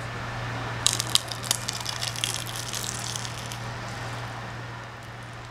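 Close-up wet mouth and eating sounds: a cluster of sharp, wet clicks from about a second in for two to three seconds as food is put into the mouth, over a steady low hum.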